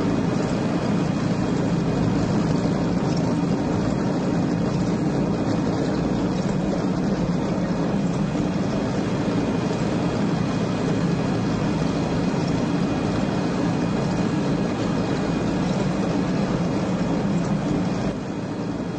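Tank driving, its engine and tracks running steadily and loudly.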